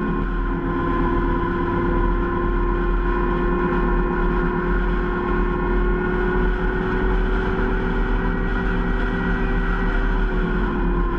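Zero SR electric motorcycle's motor whining steadily while riding at a constant speed, over wind and tyre rumble. The whine's pitch eases down slightly near the end as the bike slows.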